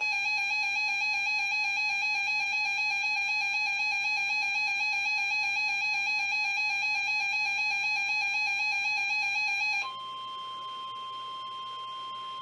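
NOAA Weather Radio alert sequence for a flash flood warning. A loud warbling electronic alarm tone sounds for about ten seconds, then cuts off and gives way to a quieter steady single tone, the weather radio's 1050 Hz Warning Alarm Tone that comes before the spoken warning.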